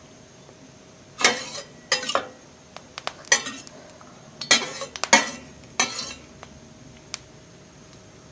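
Cooking utensils clattering and scraping against a pan in about half a dozen short bursts, while the oil heats.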